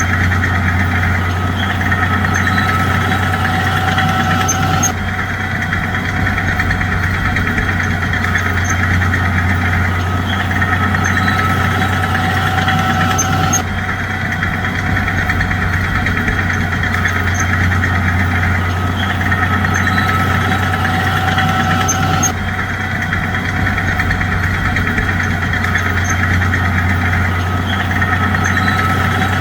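Bulldozer's diesel engine running steadily with a deep, even hum. The tone shifts abruptly three times, about every eight or nine seconds.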